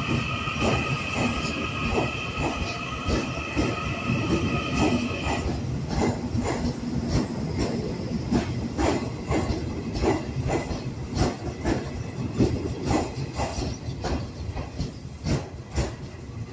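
Train wheels running over rail joints, a steady clickety-clack of evenly spaced clacks. High steady tones sound over it for the first five seconds and then stop suddenly.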